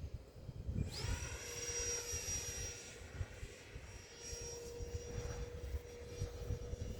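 Electric ducted-fan motor of an E-flite Habu STS model jet whining as it spools up about a second in, then holding a steady high pitch in flight. Gusty wind buffets the microphone throughout.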